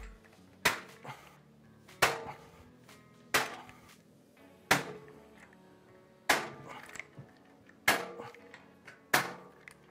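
Hand pop-rivet tool setting blind rivets in a PC case panel: seven sharp clicks about a second and a half apart, over background music.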